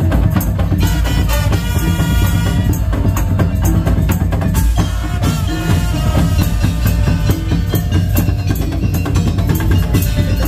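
Madurese tong-tong music: a loud percussion ensemble of drums and wooden slit drums playing a dense, driving rhythm over heavy bass, with a pitched melody line over it.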